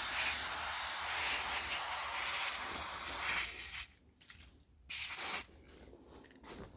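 Aerosol can of power-window cleaner spraying: one long hiss of about four seconds, then a second short burst a second later.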